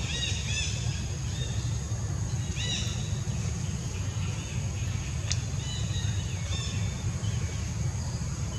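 Outdoor ambience: a steady low rumble and a thin, steady high tone, with a few short chirping calls coming through, a pair just after the start, another near the middle and more about two-thirds in, and one sharp click a little past halfway.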